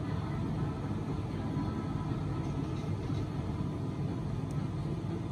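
Steady low ambient rumble with no distinct events, like the hum of a city heard from high above.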